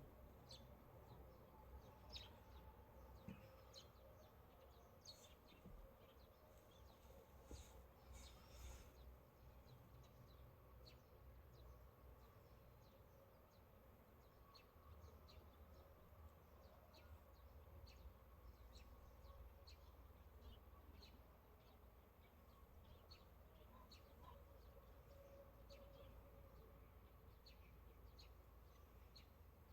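Near silence: faint ambience with many short, scattered high chirps or ticks and a low hum underneath.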